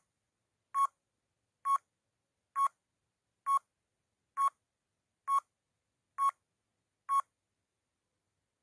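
Countdown timer sound effect: nine short electronic beeps of the same pitch, a little under a second apart, one for each second of the countdown.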